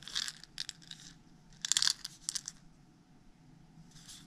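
Handmade white-tailed deer rawhide heart palm rattle, filled with small stone chips, shaken in short bursts. It gives a dry, crisp rattle: a few shakes at the start, a cluster about two seconds in, and one more near the end.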